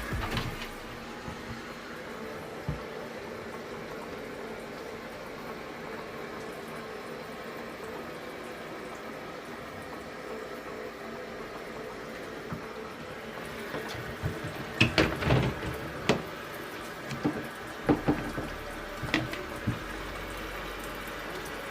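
Water running steadily from an inlet hose into the wash tub of a Giantex twin-tub portable washing machine as it fills, with a few knocks in the last several seconds.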